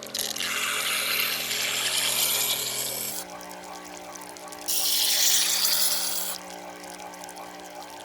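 Pocket knife blade being sharpened on a stone, two long hissing passes, the first about three seconds and the second under two, over background music.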